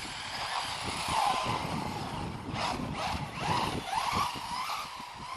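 Electric RC car's motor whining as it drives on the road, the pitch rising and falling several times with the throttle, over a rough rumble of tyres on the tarmac.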